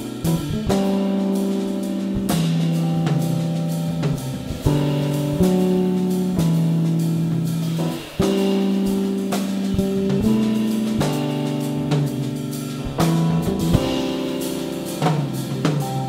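Jazz big band playing live: the ensemble holds chords that change about every second, over a drum kit with frequent drum and cymbal hits.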